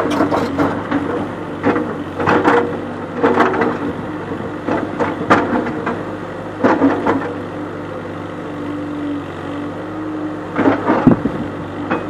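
CASE backhoe loader's diesel engine running with a steady drone, while its bucket knocks and scrapes against boulders in a series of sharp clanks, clustered near the start and again near the end.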